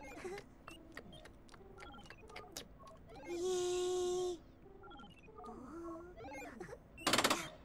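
Sound effects of a lever control panel being worked: a string of short electronic bleeps and falling tones with clicks. A loud buzzing tone is held for about a second in the middle, and a short noisy burst comes near the end.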